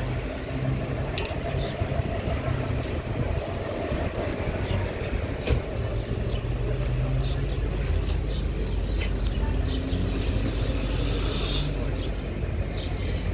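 Street traffic noise: a vehicle engine running with a steady low hum, plus scattered clicks and a light plastic-bag rustle from about eight to twelve seconds in.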